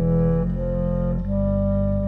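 A trio of clarinet, cello and contrabass clarinet playing slow, held chords of a medieval piece. The harmony shifts about half a second in and again just past one second.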